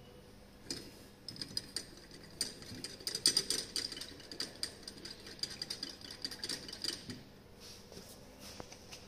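Quick, irregular clinks and rattles of laboratory glassware as the titration beaker holding the electrodes is handled. They run for about six seconds and stop about seven seconds in.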